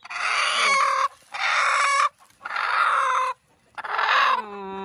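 Broody hen giving four harsh, raspy calls about a second apart, the last drawing out into a pitched squawk: an angry setting hen defending her nest as her eggs are put back under her.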